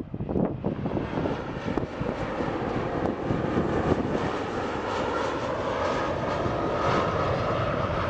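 Jet engines of a KLM Embraer 190 on final approach with its gear down: a steady rushing jet noise with a faint high whine that grows stronger in the last few seconds. Wind buffets the microphone in the first second.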